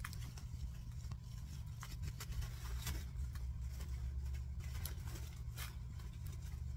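Soft rustling of an artificial fall-leaf garland as it is handled and pulled apart to untangle it, in scattered small bursts over a faint steady low hum.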